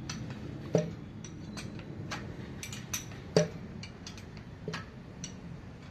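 Irregular light metallic clicks and clinks of hand tools and engine parts being handled, with sharper knocks a little under a second in and again about halfway through.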